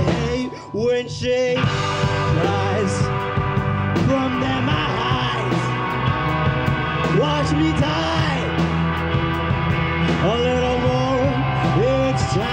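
Indie rock band playing live: electric guitars, electric bass and drum kit, with a lead vocal. The band breaks off briefly about half a second in and comes back in full about a second later.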